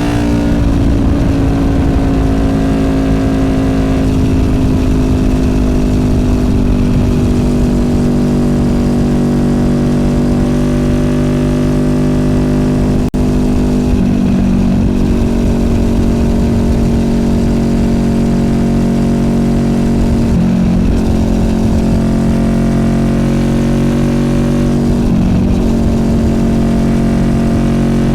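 Honda VFR800F's V4 VTEC engine running through an SC Project Conic exhaust while the bike is ridden at a steady pace. The engine note sinks slowly and changes briefly about a second in, and again a few times later.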